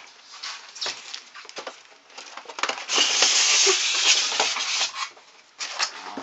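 Cardboard and plastic packaging crackling and rustling as it is handled, with a loud rasping rustle lasting about two seconds in the middle, then a few more crackles near the end.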